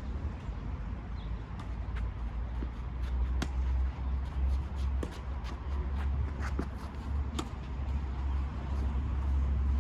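Scattered sharp knocks of a tennis ball on racket strings and court, with shoe scuffs on the court, over a steady low rumble. The clearest knocks come about three and a half and seven and a half seconds in.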